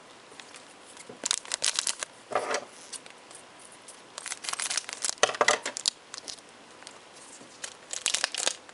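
Foil wrapper of a Japanese Pokémon card booster pack crinkling as it is handled and torn open, in several short bursts.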